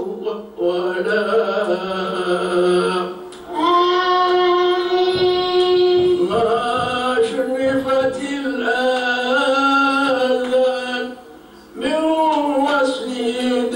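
A single voice chanting a melodic religious hymn in long, drawn-out held notes. The phrases break off briefly about three and a half seconds in and again near the end, and the voice rises to a long high note after the first break.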